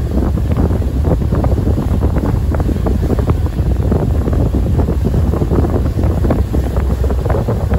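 Wind buffeting the microphone on the open deck of a ferry under way, a loud, continuous low rumble with irregular flutter, over the boat's own running noise.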